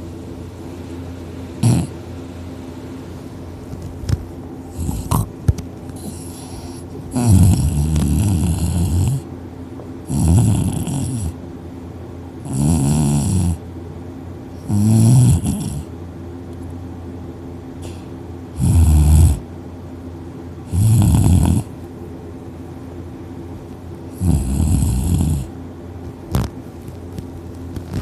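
A man asleep on his back snoring heavily: about eight loud snores, each a second or two long, coming every two to three seconds. A few short clicks come before the snores begin and once near the end.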